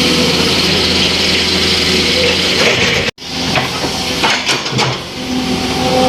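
An engine running steadily with a hiss. About three seconds in the sound cuts out abruptly, then comes back less steady, with scattered knocks.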